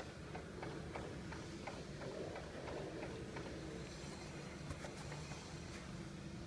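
Peugeot 3008 giving a regular light knock, about three clicks a second, over the car's low running rumble. The knock fades out about halfway through. The owner takes it for a knock in the suspension.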